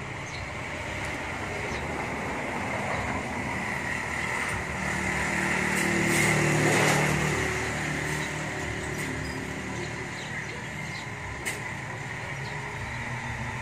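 Loaded dump truck's diesel engine running as the truck reverses over a dirt site. It grows louder as the truck comes close, peaks about halfway through, then eases slightly.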